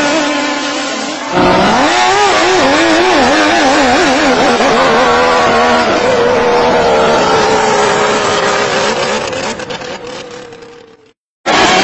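A fast boat's engine at high revs, its pitch wavering up and down with the throttle, then holding a steady high note and fading away as it goes off. It cuts out abruptly near the end.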